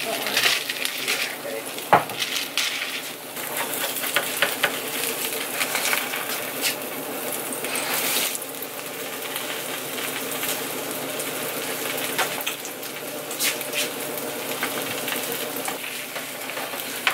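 Eggs sizzling as they fry in a skillet, with a spatula scraping and tapping against the pan as they are worked and lifted out. Small clicks and scrapes run throughout, and there is a sharp knock about two seconds in.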